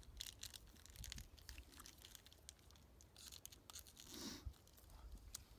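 Near silence broken by faint, scattered rustles and small clicks of hands handling things close by, perhaps a snack wrapper.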